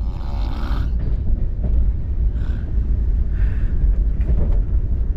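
Steady low running rumble of a moving Rajdhani Express coach heard from inside, with a few short sounds over it near the start, about two and a half seconds in and about three and a half seconds in.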